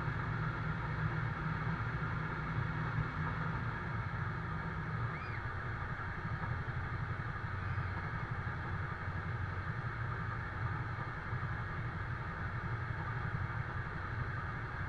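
Iveco GCBA 10/32 fire engine's engine running steadily to drive its water pump, which feeds the hose and spray, giving a constant low hum.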